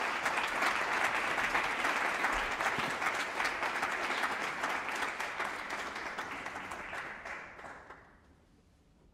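Audience applauding, dying away about eight seconds in.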